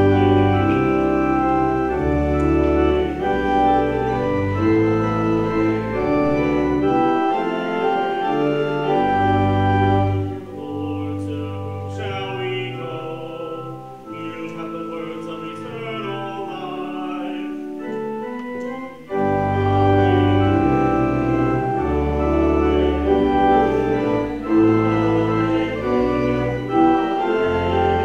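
Church organ playing sustained chords over a deep pedal bass. For about eight seconds near the middle the bass drops out and a lighter, wavering higher line plays, before the full organ comes back.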